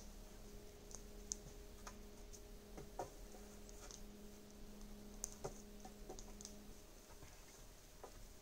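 Faint, scattered clicks and light knocks of wooden poles being handled on a log shelter's roof, with a low buzz that comes and goes and stops near the end.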